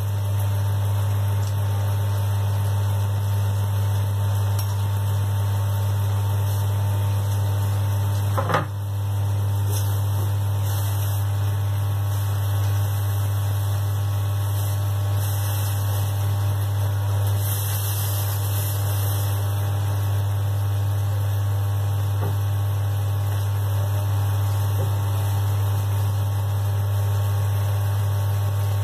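Loud steady low electrical hum, with one sharp knock about eight and a half seconds in.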